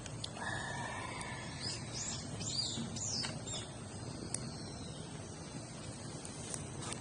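Small birds chirping outdoors: a quick run of high, sliding chirps from about a second and a half in to three and a half seconds, over a steady outdoor background. A brief lower-pitched sound comes just before the chirps.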